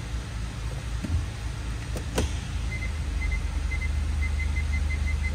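2013 Hyundai Veloster's 1.6-litre engine idling with a steady low hum; two sharp clicks about two seconds in as the car is put into reverse, then the rear parking sensor's high electronic beeping, quickening until it is almost continuous near the end.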